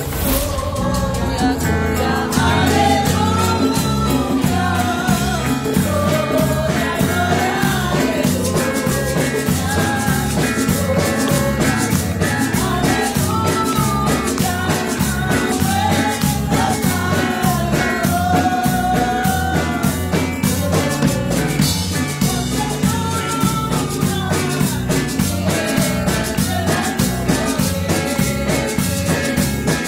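Live church praise music: a woman sings a worship song into a microphone, accompanied by electric bass guitar over a steady beat.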